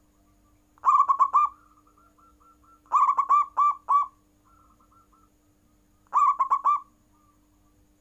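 Zebra dove (perkutut) singing: three phrases of quick, rolling coo notes, about a second in, at three seconds and at six seconds. Between the phrases come fainter runs of softer notes from a second dove answering.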